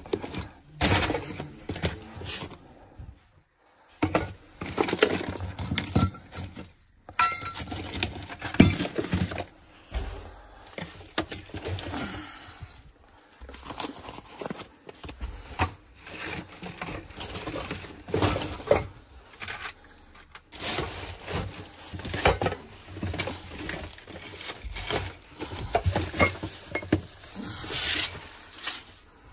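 Rummaging by hand through piles of old household junk: objects knocking, clattering and clinking together in irregular bursts.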